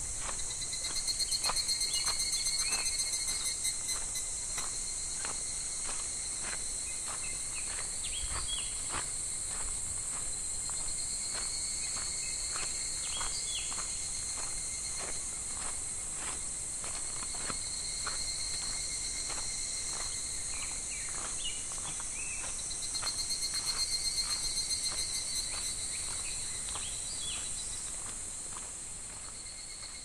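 Cicadas singing in a steady high drone, with a louder pulsing cicada song swelling up twice, about a second in and again past twenty seconds. Short crunching steps on river gravel come every half second to a second.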